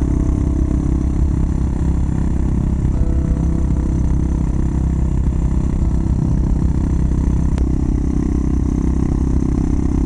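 Yamaha SR400's single-cylinder engine running steadily at cruising speed, with heavy wind rumble on the microphone.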